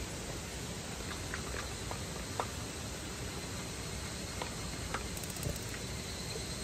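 A few light, irregular clicks from a gas lantern's valve knob and push-button igniter being worked, over a steady hiss.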